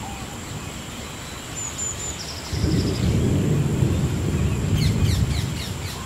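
Thunder in a rainforest storm over steady rain: a low rumble sets in suddenly about halfway through and lasts about three seconds. Birds call above it, with a few short chirps and a quick trill, then a run of quick falling notes near the end.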